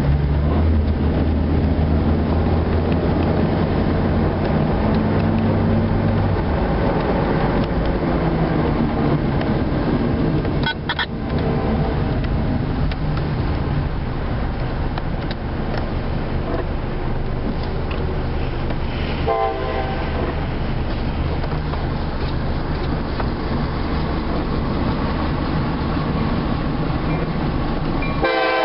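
Steady car engine and road noise heard from inside the car, then a diesel freight locomotive's air horn sounding briefly about two-thirds of the way through and again right at the end as the train nears the grade crossing. The locomotive is a CSX GP39-2.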